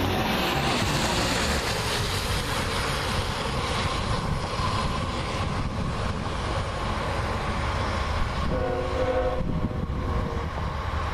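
Approaching diesel-hauled freight train rumbling steadily, with wind on the microphone, and a single horn blast of about a second from the lead locomotive, Norfolk Southern 8100, near the end.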